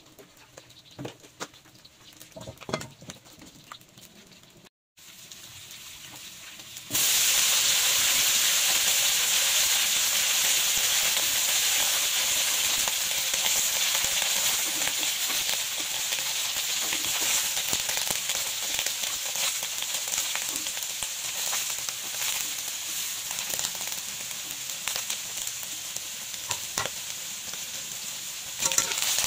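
Quiet at first with a few light clicks, then about seven seconds in a sudden steady sizzle of cut eggplant frying in hot oil in a wok. It grows a little louder near the end.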